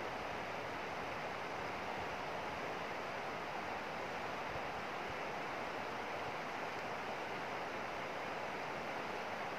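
Steady rush of a shallow, stony river flowing.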